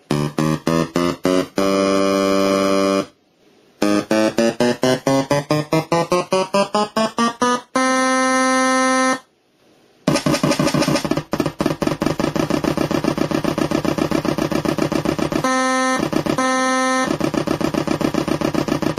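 Programmable model-boat engine sound unit playing a synthesized engine through its speaker: a pulsing engine note that speeds up and rises in pitch, then runs fast and steady. Held horn blasts from the same speaker replace the engine sound for a moment, including two short toots near the end.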